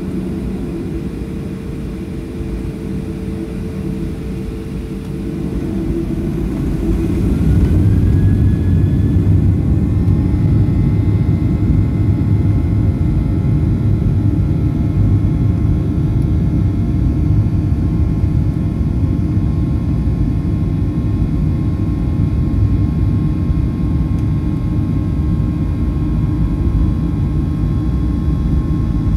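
Boeing 737-800's CFM56 turbofan engines spooling up to takeoff thrust. About seven seconds in a whine rises and the sound grows louder, then it settles into a steady loud rumble with a steady whine.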